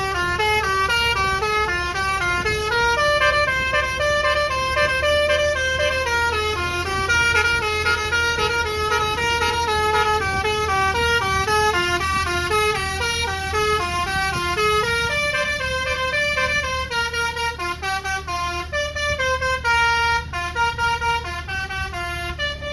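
Bus telolet horn, a multi-tone Basuri air horn, playing a fast tune of stepped notes that change several times a second, over the low hum of the bus's engine.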